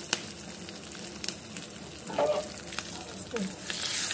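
Tadka sizzling in a small steel pan: curry leaves, red chillies, cumin, mustard and fenugreek seeds and chilli powder frying in hot mustard oil and ghee, with scattered sharp crackles. The sizzle grows louder near the end as a ladle stirs the pan.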